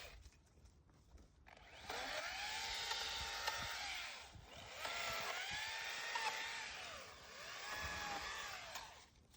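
Makita electric chainsaw running in three bursts of about two seconds each. In each burst the motor's whine rises, holds, then winds down as the trigger is released.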